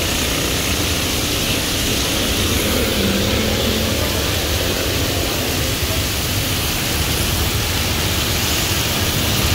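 Heavy rain pouring onto a road, a steady hiss, with vehicles driving through the water on the road.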